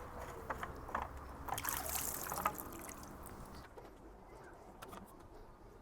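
Water trickling and dribbling from a disconnected pool pipe, with a few light knocks in the first half. It grows quieter in the second half.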